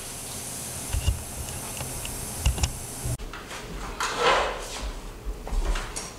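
A wooden ladder being handled on a wooden floor: a scrape about four seconds in and a few knocks near the end. Before that, a steady hiss with a few low thumps.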